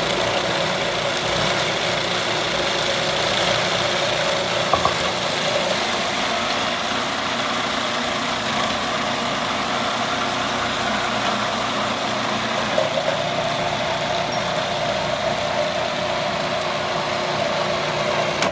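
Food processor motor running steadily at full speed, its blade chopping a ground beef, bacon, onion, herb and egg mixture into a paste; the motor cuts off suddenly at the very end.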